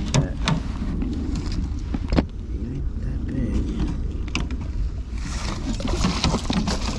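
Knocks and clicks of fishing rods, line and gear being handled in a boat, over a steady low rumble; about five seconds in, a louder stretch of rustling and clattering begins.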